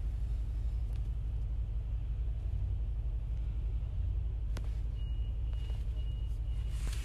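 Steady low rumble inside a car's cabin with the engine running.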